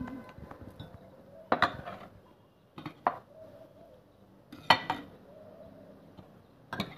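A metal spoon clinking against glass and china dishes, four sharp clinks a second or two apart, the third the loudest.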